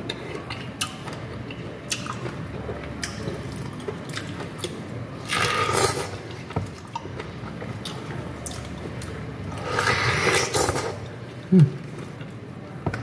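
Close-up wet chewing and slurping of juicy fresh pineapple flesh, with small mouth clicks throughout. Two longer, louder slurping bites come about five and ten seconds in.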